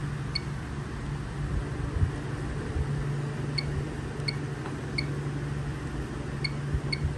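Napco alarm keypad's piezo buzzer giving short, identical key-press beeps, six of them: one near the start, then five more a second or less apart in the second half, over a steady low hum.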